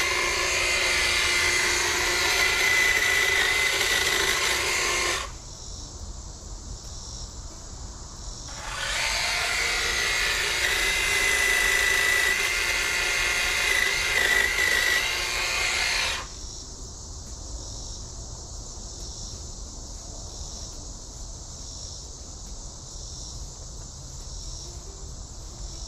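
Cordless brushless hedge trimmer running in two bursts with a steady whine, its reciprocating blades cutting shrub growth. It cuts off about five seconds in, starts again about three and a half seconds later, and stops again around sixteen seconds in. Between and after the bursts, insects chirp steadily with a pulsing rhythm.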